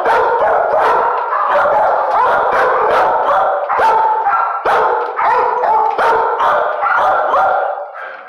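Many shelter dogs barking over one another in a kennel room: a continuous dense din of overlapping barks, with sharp single barks standing out several times a second, easing briefly near the end.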